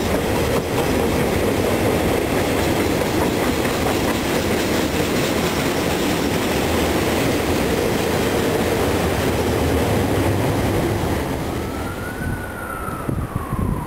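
A freight train's wagons rolling past on the rails with a steady rumble of wheels and rails, which fades away about eleven seconds in. Near the end an emergency siren wails, rising and then falling in pitch.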